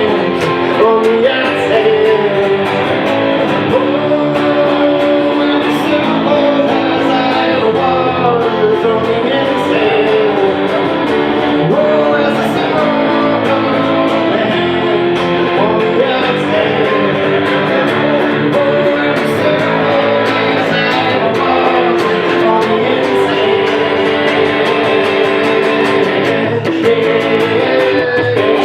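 Live guitar-led blues-rock music, an instrumental passage with bending, wavering guitar lines over sustained chords.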